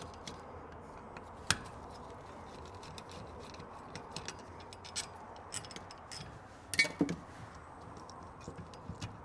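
Scattered small metallic clicks and clinks of tools and parts as the main venturis are worked out of a Carter AFB carburetor's aluminum body. There is a sharper click about a second and a half in and a short cluster of clinks about seven seconds in.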